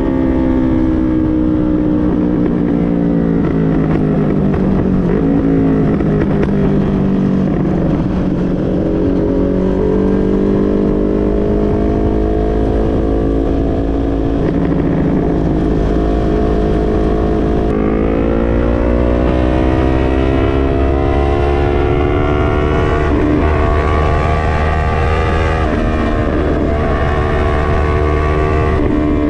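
Yamaha MT-03's parallel-twin engine through an SC-Project full exhaust, ridden hard: the engine note falls as the bike slows over the first several seconds, then climbs again, with a sudden gear change about two-thirds of the way through and a further climb in revs. A steady low wind rumble runs underneath.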